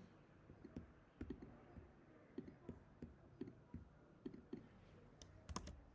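Faint, irregular clicking of a laptop keyboard and trackpad while copying and pasting text, with a couple of sharper clicks near the end.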